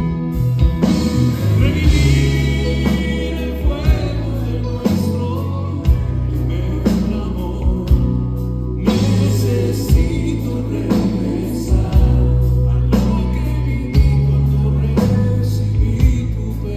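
Live Christian band performance: a male lead singer with backing vocals over electric guitars, keyboards, bass and a drum kit keeping a steady beat.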